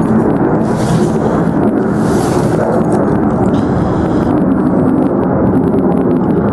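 Wind buffeting the camera's microphone: a loud, steady rumble with two brief hissing rustles about one and two seconds in.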